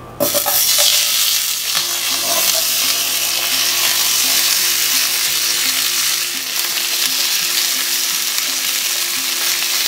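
Sliced onions and bell peppers sliding into hot oil in a skillet and sizzling, a steady loud hiss that starts suddenly as they land.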